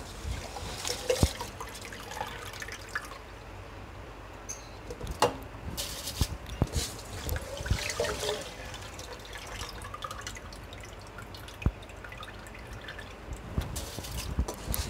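Spiced water boiling in an aluminium pot, with wet splashes and drips as handfuls of soaked rice are dropped in and water runs off the wet rice, and a few sharp clicks scattered through.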